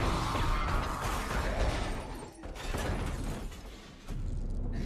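Action-film sound effects: a blast followed by crashing metal and breaking glass, with a second surge of crashing after a brief dip. It fades about four seconds in, and a low rumble then returns.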